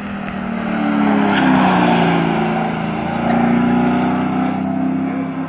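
Race vehicle's engine under power as it laps a paved track and passes close by. It is loudest about one and a half to two seconds in and swells again near four seconds, its note rising and falling.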